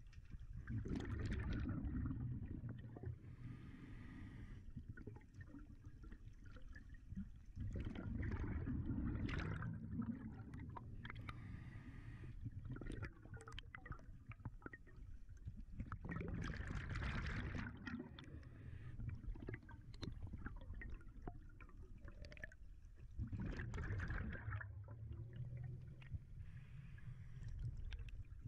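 A scuba diver breathing through a regulator underwater: four rushes of exhaled bubbles about seven to eight seconds apart, each followed by a fainter hiss of inhalation.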